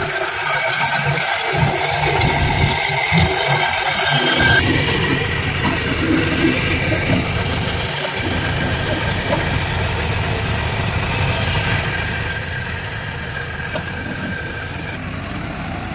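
Diesel engines of heavy worksite machinery running steadily. A steady high whine sits over the first four seconds or so, and the sound changes abruptly about four and eight seconds in.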